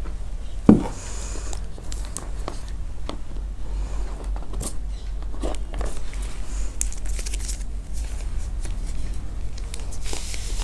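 Hands handling a cardboard smartphone box and a phone in a plastic sleeve: scattered light rustles and clicks, with a sharper knock about a second in, over a steady low hum.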